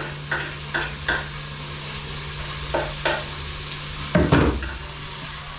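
Tomatoes and spices frying and sizzling in a pot while a spoon stirs them, knocking against the pot several times, loudest about four seconds in.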